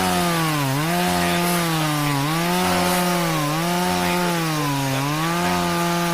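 Two-stroke chainsaw running at high revs, its pitch dipping briefly about every second and a half.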